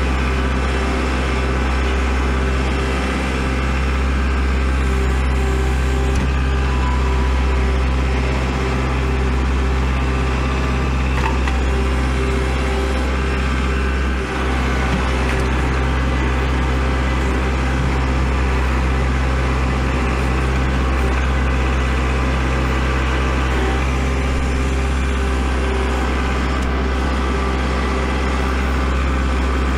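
An engine running steadily: a constant, loud low drone with an even, unchanging pitch.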